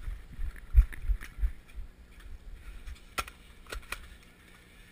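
Low thudding footsteps, about three a second, with the body-worn microphone jostled as the player moves forward. About three seconds in come three sharp clicks in quick succession.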